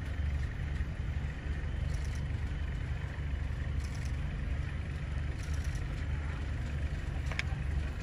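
Steady low hum of an idling car engine, heard from inside the vehicle, with a few faint ticks and one short sharp click near the end.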